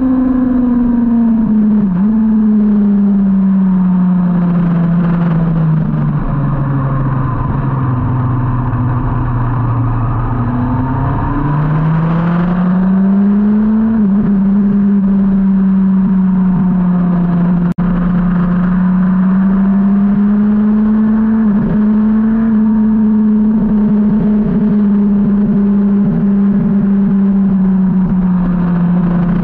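2003 Yamaha R1's inline-four engine heard onboard over wind rush. The revs fall steadily for the first several seconds as the bike slows from over 100 mph, hold low, then rise again about 11 seconds in and stay fairly steady to the end.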